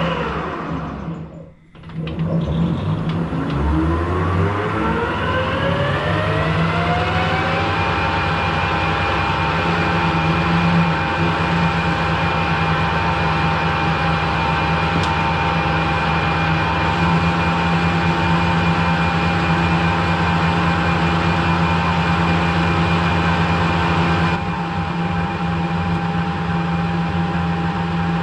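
Harrison metal lathe running while turning a steel hex bar: its note falls and nearly dies away about a second in, then climbs over about five seconds back to a steady hum and whine.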